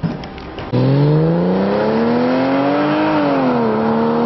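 Porsche 996 Carrera 4's flat-six engine through a Super Sprint stainless steel sports exhaust, accelerating hard. The note starts abruptly under a second in and rises in pitch, drops at an upshift about three seconds in, then climbs again.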